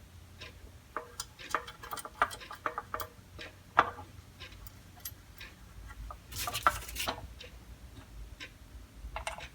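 Metal parts and tools being handled as a platen is fitted to a belt grinder: irregular clicks, taps and knocks, with a brief rattling scrape about six to seven seconds in.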